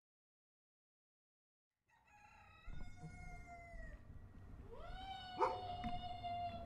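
Rooster crowing, starting about two seconds in: a long cock-a-doodle-doo that swoops up and ends on a held note, over a faint background hiss. A sharp click sounds in the middle of the held note.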